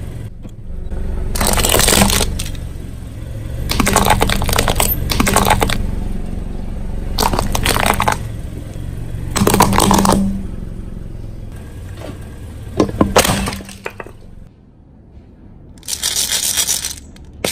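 Car tyre slowly rolling over chestnuts, cracking and crushing their shells in a series of sharp crackling bursts every second or two.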